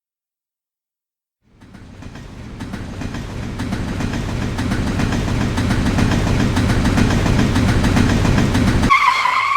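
A train running on rails, rumbling with a regular clicking of wheels over rail joints, fading in and growing louder. Near the end the rumble cuts off abruptly and a brief high tone sounds.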